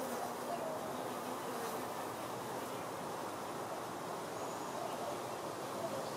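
Outdoor ambience by a honeybee hive: a steady background hum of bees flying, with two faint bird calls, one about half a second in and one near five seconds.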